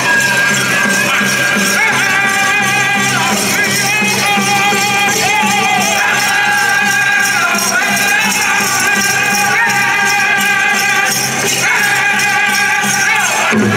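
Powwow drum group singing in high, long-held, wavering voices over a steady drumbeat, with metallic jingling from dancers' regalia throughout.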